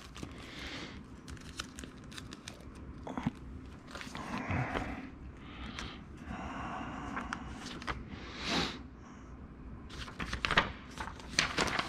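Paper instruction sheets and a clear plastic sleeve handled: quiet, scattered crinkling and crackling as the papers are slid out, turned over and unfolded, with a denser run of crackles near the end.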